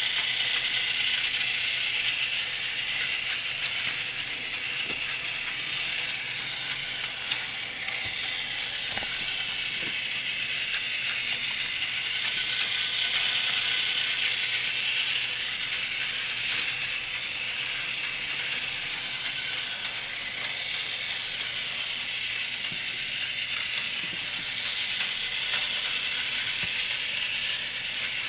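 Battery-powered Plarail Taiwan High Speed Rail 700T toy train running on plastic track: its small motor and gearbox whir and rattle steadily, swelling and fading as it circles past, with a few sharp clicks along the way.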